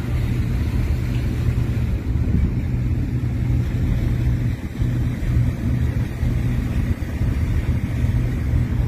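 Steady low rumble and hum of a vehicle driving, heard from inside the cab: engine and road noise.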